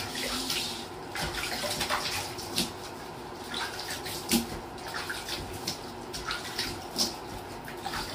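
Water splashing and sloshing in a plastic wash basin as a hand scoops water over a wet Shiba Inu puppy standing in it. The splashes come irregularly, with louder ones a little past four seconds in and near seven seconds.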